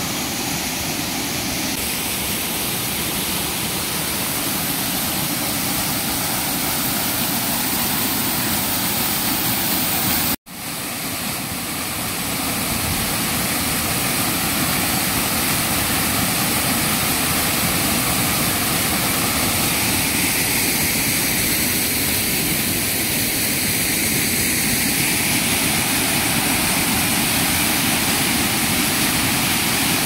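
Steady rush of a waterfall, cutting out for an instant about ten seconds in and then resuming.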